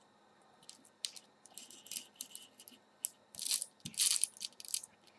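Utility knife and steel ruler being handled and worked on a velcro panel: scattered light clicks and short scratchy scrapes, the loudest a little past the middle.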